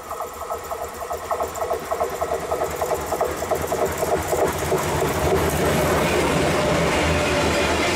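A freight train approaching and passing close by: first a rapid, even ticking that grows louder as it nears, then from about five seconds in the loud rushing rumble of its covered freight wagons going past.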